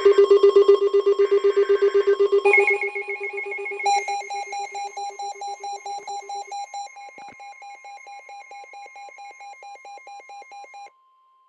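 Electronic alert tones: rapidly pulsing beeps at several pitches layered together. A deeper one stops partway, and the rest cut off near the end, leaving a faint steady tone.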